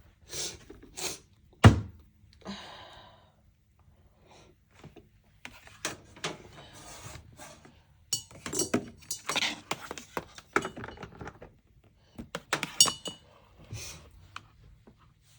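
Handling noises: a series of knocks, taps and light clinks as small objects are picked up and set down, with one sharp thunk about two seconds in and a busier run of knocks and clinks in the second half.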